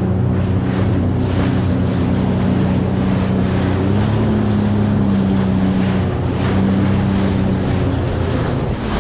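Jet ski engine running under way, its pitch rising about four seconds in and easing back a couple of seconds later, with wind buffeting the microphone and the hiss of water.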